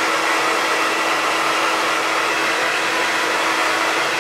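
Hand-held hair dryer blowing on damp hair, a steady rush of air with a constant motor hum.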